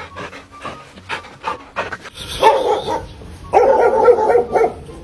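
A dog panting in quick short breaths, then giving two longer, louder vocal calls about halfway through.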